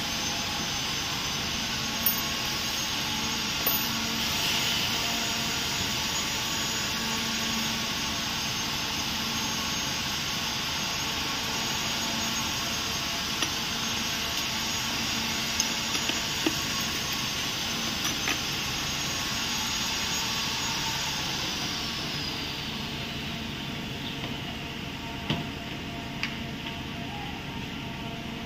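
A high-speed electric motor running steadily with a high whine, then winding down over a few seconds near the end. A few light clicks and knocks come over it.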